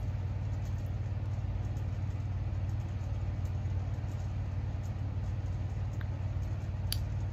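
A steady low background hum, with one faint click near the end.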